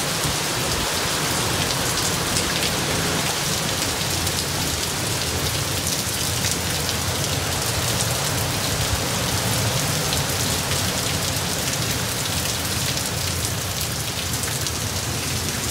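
Heavy hurricane rain pouring steadily, with a low rumble of gusting wind.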